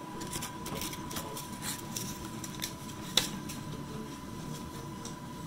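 Handling noise: light clicks and taps as a small ABS plastic piece is held and turned in the fingers, with one sharper click about three seconds in. A steady low hum and a faint steady high tone sit underneath.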